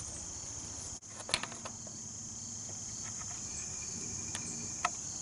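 Steady high-pitched insect chorus, crickets or similar, with a few short clicks about a second in and near the end.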